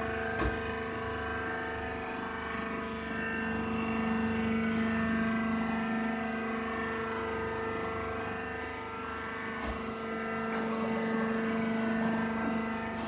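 Rice husk baler machine running with a steady, even-pitched mechanical hum, with a light knock about half a second in and another near ten seconds.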